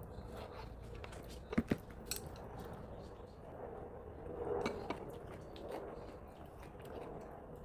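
A few light clinks and knocks of dishes and utensils, with a brief louder handling noise about halfway through.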